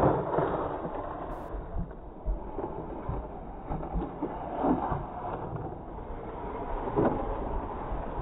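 Small electric RC off-road car climbing a sandy slope, its motor revving in a few short bursts as the wheels spin and dig into the sand, over a steady low rumble of wind on the microphone.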